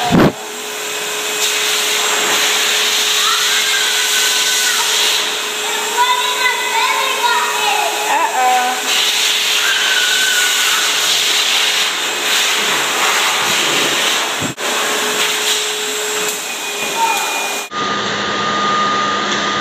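Dog-wash blow dryer (forced-air pet dryer) running, a constant rushing blast of air through its hose with a steady hum.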